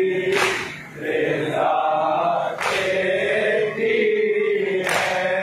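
A group of men chanting a nauha, a Shia mourning lament, in unison, with a sharp collective matam chest-strike landing about every two seconds, three times.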